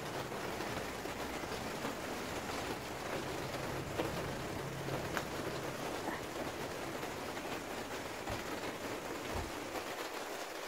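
Steady rain falling on garden plants and soil: an even hiss with a few faint ticks of drops.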